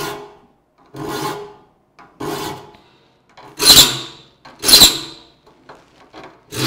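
Saw file rasping across the steel teeth of a crosscut hand saw held in a saw vise: about five strokes roughly a second apart. The later strokes are louder, with a high-pitched screeching that is the sign of a file going dull or of the saw plate vibrating where the vise does not grip it firmly.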